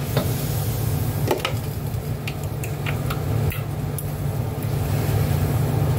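Kitchen range hood fan running with a steady low hum, with a few light clicks of a metal spatula against a wok as leafy greens are stirred.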